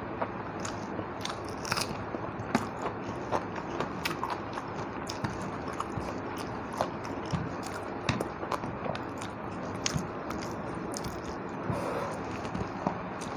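Close-up chewing and mouth sounds of a person eating rice and fish curry, with irregular wet clicks and smacks over a steady hiss.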